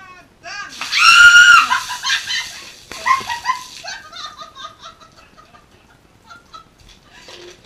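A woman shrieking from the shock of ice water just poured over her head. One loud, long, high-pitched scream comes about a second in, followed by a string of shorter squeals and gasps that die down.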